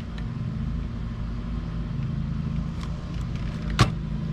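A car door-panel switch's wiring plug being pulled off, with one sharp plastic click near the end, over a steady low mechanical hum.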